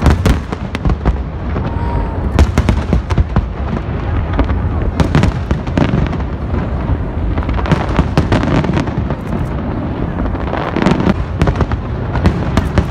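Fireworks going off continuously: a close run of sharp bangs and crackles over a constant low rumble.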